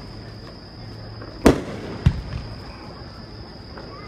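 Aerial firework shells bursting: one sharp bang about a second and a half in, then a second, duller bang about half a second later, each trailing off in an echoing rumble.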